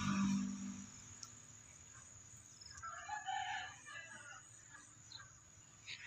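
A rooster crowing faintly, once, about three seconds in.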